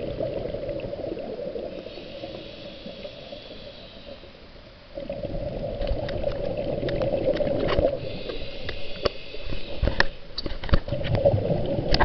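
Muffled water noise picked up by a camera held underwater, with a steady rushing that dips just before halfway, then returns louder with many sharp clicks and knocks, likely the camera or its housing being handled or bumping.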